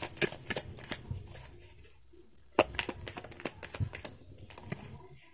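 A deck of tarot cards being shuffled and handled: light card clicks and rustles, pausing briefly partway through.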